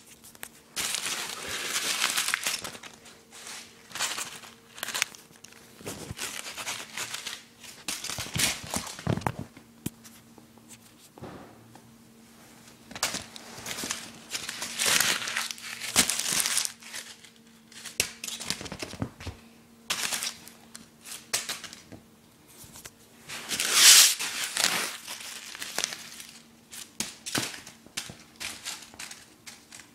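A piece of paper crinkling and rustling in irregular bursts as a kitten bats, bites and rolls with it, the loudest crackle about 24 seconds in.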